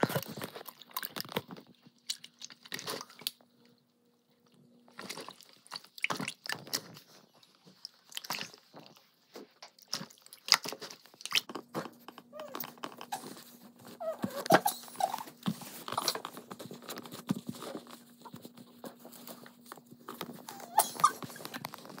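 Fingers squishing and poking slime, making many small sticky clicks and crackling pops, with a short pause about four seconds in.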